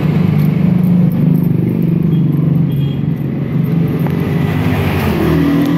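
A motor vehicle engine running with a steady low hum, rising a little in pitch and fading near the end.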